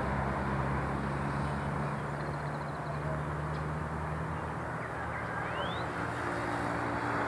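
Urban outdoor ambience: a steady hiss of distant traffic with a low engine hum, and a brief rising bird chirp near the end.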